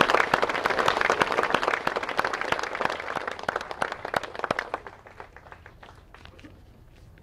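Crowd applauding, loud at first, then thinning out over a few seconds to a few last scattered claps.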